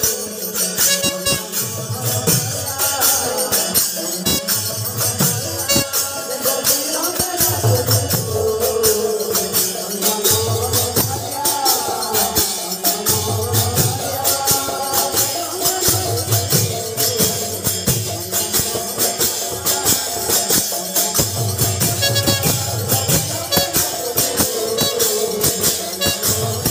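Kirtan ensemble in full swing: hand drums beating a repeated pattern under a constant metallic jingle of brass hand cymbals, with a melody line over them.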